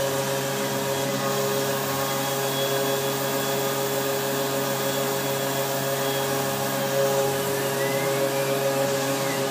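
Tormach PCNC 770 CNC mill running, its spindle whining at a steady pitch as it mills a carbon fiber plate. A faint rising and falling whine comes near the end as the machine's axes move.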